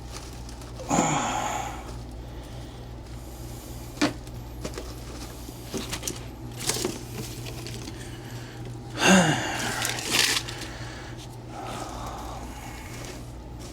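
Plastic plant pots and potting soil being handled: scattered rustles, scrapes and a sharp knock, the loudest about a second in and again around nine seconds, over a steady low hum.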